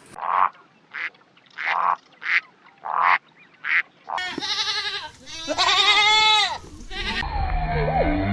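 A duck quacking about six times in quick, separate calls. Then, after an abrupt change, a sheep bleating twice with long, wavering calls, and a lower livestock call begins near the end.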